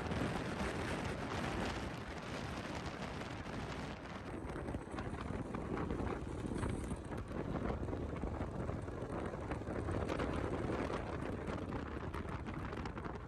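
Wind buffeting the microphone: a steady rushing rumble heaviest in the low end, with no clear engine note showing through.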